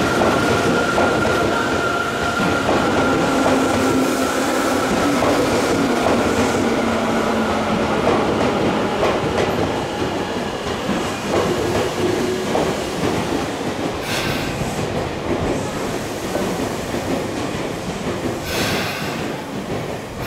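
Tokyu 8500 series field-chopper electric train running past and slowing, its wheels clacking over rail joints. A couple of tones slide down in pitch over the first several seconds. Two short hissing noises come about fourteen seconds in and near the end.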